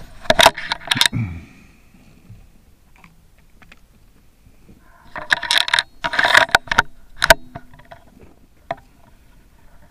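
Handling noise on a scoped rifle: two bursts of rapid metallic clicks and scrapes, one in the first second and another from about five seconds in, ending in a single sharp click a little after seven seconds.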